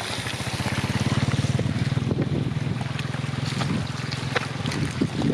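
Small boat engine running steadily with a fast, even chug, plus a few brief knocks.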